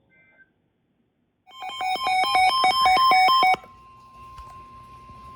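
Weather alert radio alarm: a loud electronic two-tone beeping that alternates rapidly for about two seconds and cuts off abruptly. It is followed by the quieter, steady single-pitch NOAA Weather Radio warning alarm tone, which signals that a warning broadcast is about to begin.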